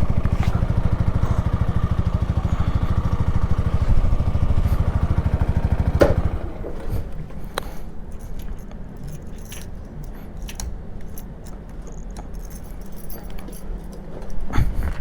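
Keeway Superlight 125cc motorcycle engine idling with a fast, even beat, then switched off about six seconds in. After that come light clicks, scrapes and jingling of keys as the parked bike is handled.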